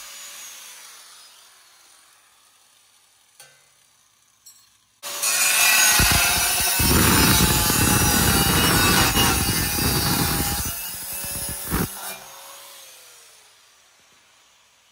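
Handheld angle grinder with a cutting wheel cutting through a steel brake dust shield. It winds down at the start, starts up again about five seconds in and grinds through the metal for about six seconds, then spins down with a falling whine, with a couple of knocks near the end of the cut.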